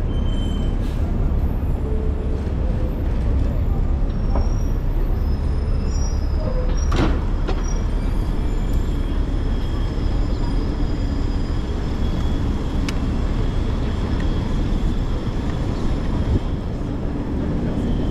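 City street noise heard from a moving bicycle: a steady low rumble of traffic and wind on the microphone, with a single sharp knock about seven seconds in.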